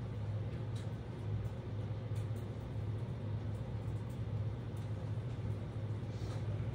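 A steady low mechanical hum of room machinery with an even hiss above it, and a few faint ticks.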